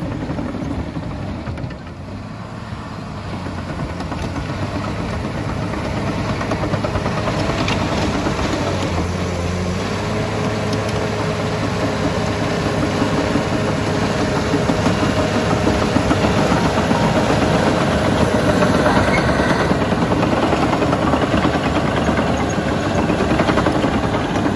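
Caterpillar D5G LGP crawler dozer's diesel engine running under load as it pushes dirt. It dips briefly about two seconds in, then grows steadily louder as the machine works closer, with a shift in engine pitch about ten seconds in.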